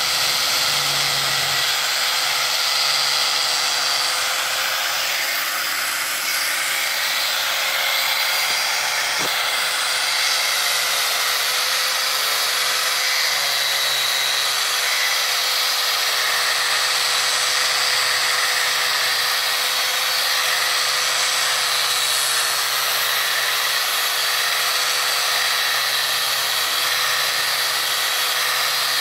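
Handheld electric sander with a round sanding pad running steadily on a solid jackfruit (langka) wood door: a steady motor whine over the hiss of the abrasive on the wood.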